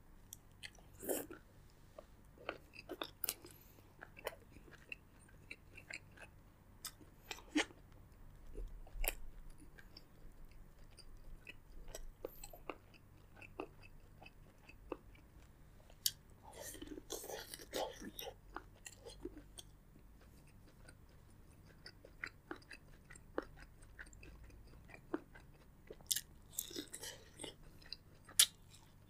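Close-miked eating of seafood boil: chewing with many short wet clicks, and two longer, denser bursts about 17 and 26 seconds in.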